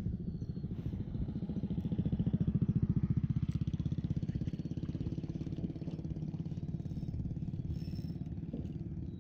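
Spinning reel being cranked close up, its gears whirring in a rapid, even rhythm, louder for a stretch about two seconds in, as the line is wound in against a snagged lure.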